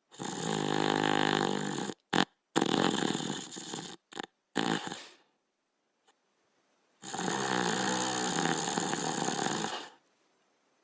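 A sleeping dog snoring: one long snore at the start, a broken run of shorter snores in the middle, and another long snore about seven seconds in.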